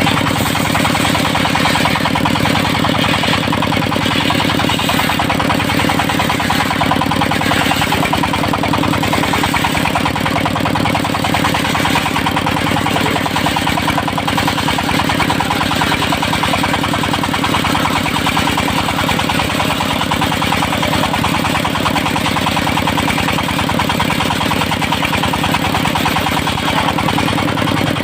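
Engine of a portable circular-saw sawmill running steadily at a constant speed, with a fast, even firing pulse.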